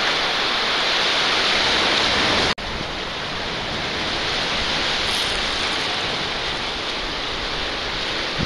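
Steady rush of sea waves breaking on the rocks of a jetty, with wind on the microphone. It breaks off for an instant about two and a half seconds in, then carries on slightly quieter.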